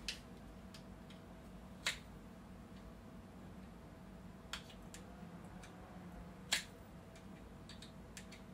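Small parts and tools being handled during a laptop repair: four sharp, separate clicks about two seconds apart, with a few fainter ticks, over a faint steady hum.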